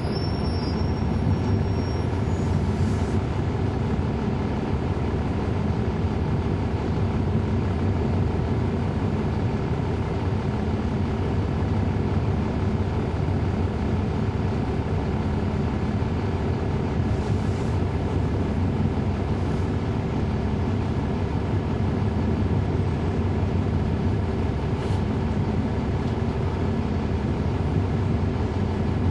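Cummins ISL9 diesel engine and radiator fan of a NABI 40-SFW transit bus, heard from the back seat inside the bus, running at a steady speed as one constant drone with no rise or fall in pitch. A few faint light ticks or rattles sound over it.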